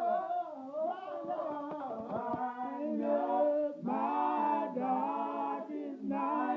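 Gospel vocal group singing a cappella in harmony, voices holding and bending long sung notes with short breaks between phrases.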